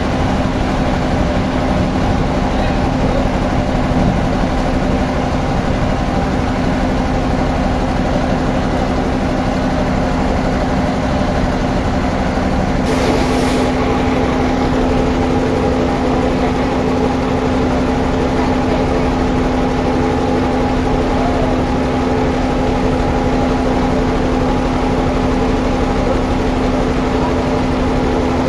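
Sawmill machinery running steadily and unloaded, a continuous engine-like hum with a constant pitch, while the log is being positioned rather than cut. A brief hiss sounds about halfway through.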